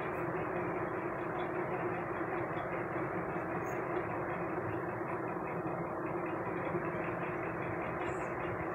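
Steady, unbroken background noise with a low hum running through it, like a machine or vehicle running continuously.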